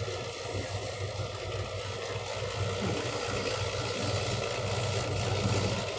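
Refrigeration condensing unit running: a steady mechanical hum from the compressor and condenser fan, with an even hiss over it.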